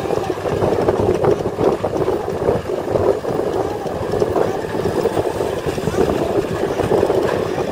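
A loaded dump truck's diesel engine running steadily while the hydraulic hoist raises the tipper bed to dump soil.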